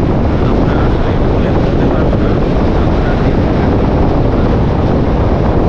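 Strong wind buffeting the microphone: a loud, rough, fluttering rumble.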